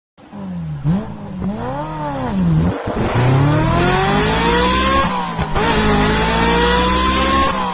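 A car engine revving, its pitch swinging up and down, then accelerating hard through the gears: the pitch climbs steadily and drops sharply at each shift, twice.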